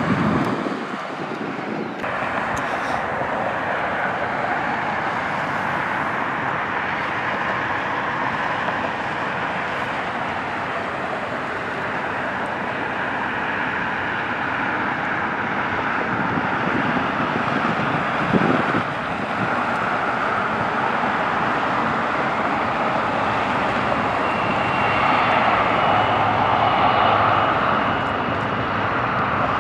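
Jet aircraft engines on the airfield: a steady rushing noise, with a thin high whine coming in over the last few seconds.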